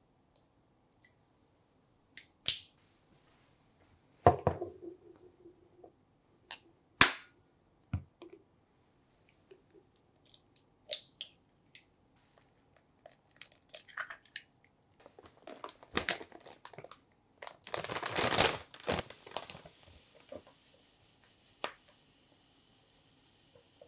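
Sharp cracks and taps of eggs being broken on a glass mixing bowl, with clinks of glass. Near the end there is a rustling stretch, then a soft hiss of granulated sugar poured from a bag into the bowl.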